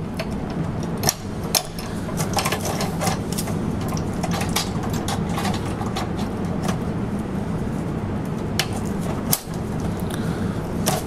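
Irregular metallic clicks and clinks as a belt of 12.7 mm cartridges is laid into the segmented feed chute of an M3M heavy machine gun mount. A steady low hum runs underneath.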